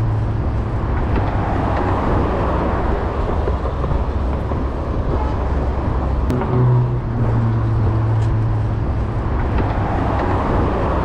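Wind rush on the action-camera microphone and road traffic while cycling along a city avenue. A low steady hum fades after about two seconds and comes back for a few seconds around the middle.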